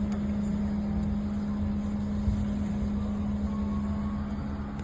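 Steady low mechanical hum from a running motor: an even rumble with a constant drone that holds unchanged throughout.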